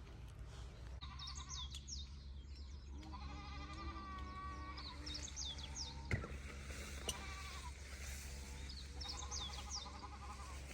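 Faint animal calls with a wavering, bleat-like pitch, heard three times, mixed with short high chirps.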